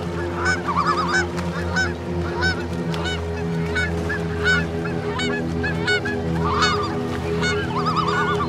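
A flock of birds calling, many short arched calls overlapping one another without a break, over a steady low hum.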